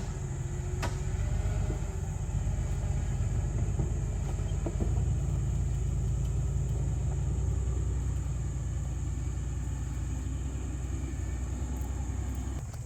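Jeep engine running off-road with a low steady rumble, which drops away shortly before the end.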